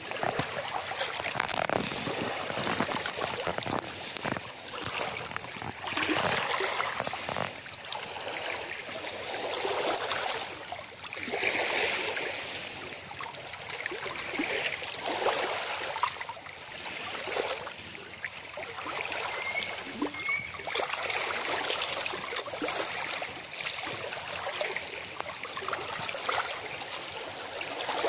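Small waves lapping and washing over pebbles and rocks at the shoreline, swelling and falling back every two to three seconds.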